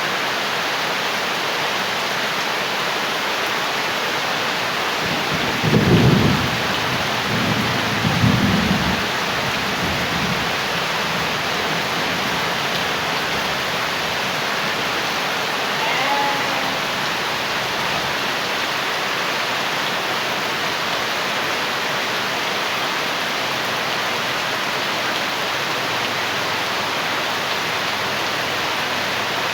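Steady rain falling, with two low rolls of thunder about six and eight seconds in.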